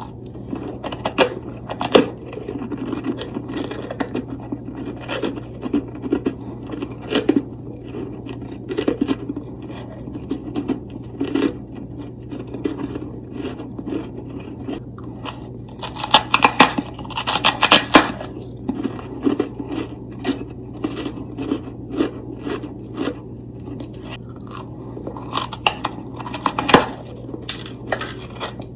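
Close-miked crunching and scraping of soft, powdery freezer frost, in irregular crisp crunches that come thicker and louder about halfway through and again near the end. A steady low hum runs underneath.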